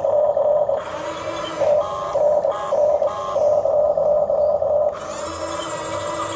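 Small electric motors of a Huina 1550 remote-control toy excavator whining steadily. Extra higher motor tones cut in and out in short spells as different functions are worked.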